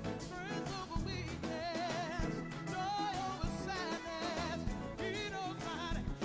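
Church band playing a gospel arrangement, with lead vocals singing a melody over keyboards, bass and drums.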